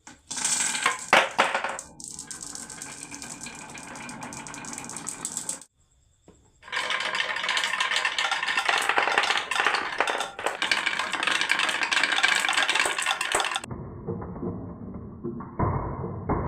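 Marbles rolling and clattering down a wooden marble run, a dense rattle of small clicks that breaks off abruptly twice.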